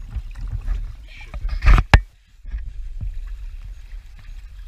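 Knocks and rubbing of an action camera handled against a small inflatable boat's wet hull, over wind rumble on the microphone. A loud clatter comes about two seconds in, the sound cuts out for a moment, then a steady low rumble returns.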